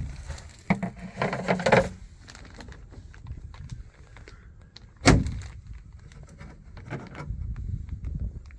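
A sharp bang right at the start and another about five seconds in, each with a short ringing tail. Between them, about a second in, comes a stretch of rattling and handling noise, all over a steady low rumble.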